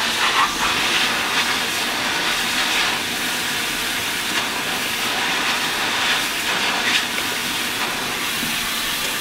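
Hatter's steamer jetting steam in a steady hiss as a beaver-fur felt hat is held in the jet to soften the felt for reshaping.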